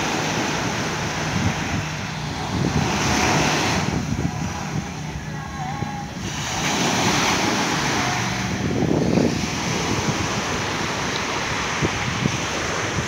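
Small waves breaking and washing up on a sandy shore, the surf swelling and easing every few seconds, with wind rumbling on the microphone.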